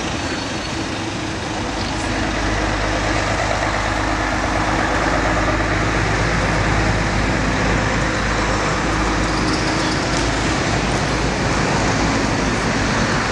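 Steady motor-vehicle noise: engines running and road traffic going without a break, a little louder from about two seconds in.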